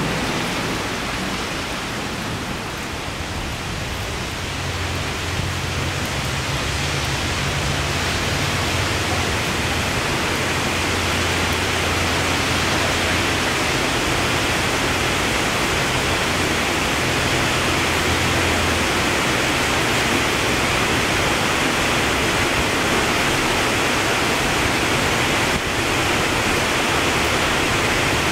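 Heavy rain pouring down steadily in a thunderstorm, a dense unbroken hiss.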